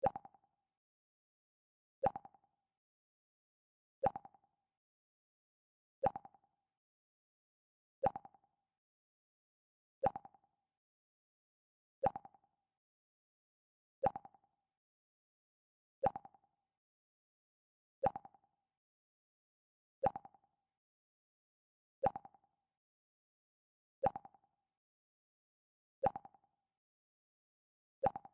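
Mac OS X 'Pluck' alert sound repeating every two seconds: a short, mid-pitched pluck that dies away quickly, with silence between plucks.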